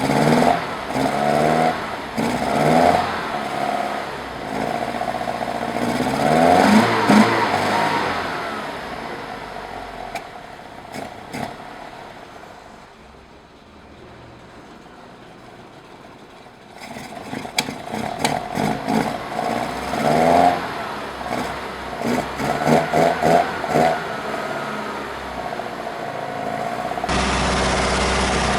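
BMW 2002's four-cylinder engine running on freshly installed Dellorto DHLA40 carburettors just after its first start on them, revved repeatedly with pitch rising and falling. It settles to a quieter idle about halfway through, then is revved again. Near the end the sound changes abruptly to a steady, even run.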